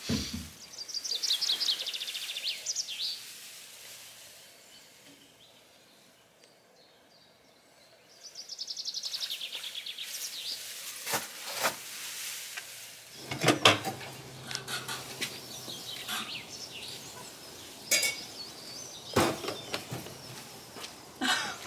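A small songbird sings a fast high trill twice, near the start and again about nine seconds in. From about eleven seconds on, sharp plastic knocks and clatter come from a portable toilet's waste tank as it is handled for emptying.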